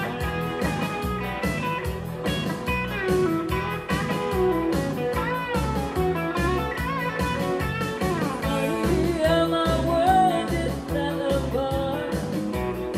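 Two electric guitars playing live: a lead guitar line full of string bends over rhythm guitar and a steady beat.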